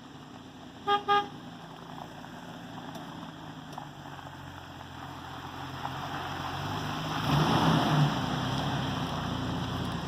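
Two short car-horn toots about a second in. Then a vehicle's engine and road noise build louder, strongest near the end.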